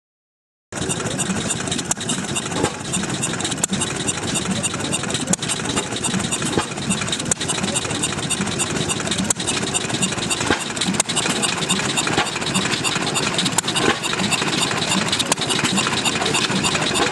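Small antique single-cylinder hit-or-miss engine running steadily and belt-driving a scroll saw, with sharp pops at irregular intervals, one every second or two.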